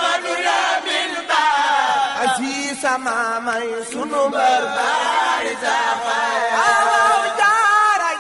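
Sufi devotional chant: voices singing a continuous, ornamented melody whose pitch wavers and glides.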